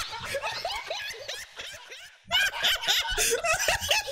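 People laughing hard in repeated short giggling bursts. The laughter dies away about two seconds in and then breaks out again loudly.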